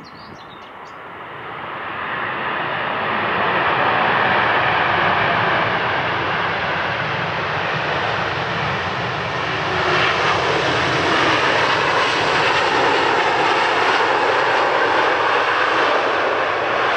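Jet engine noise from a Boeing 787 Dreamliner rolling out after touchdown on a wet runway, with its spoilers deployed as it slows. The noise builds over the first few seconds, then holds loud and steady.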